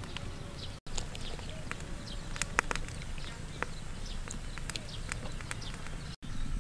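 Wood fire crackling with scattered sharp pops over a low steady rumble, under a clay pot of broth on the boil. The sound cuts out for an instant twice.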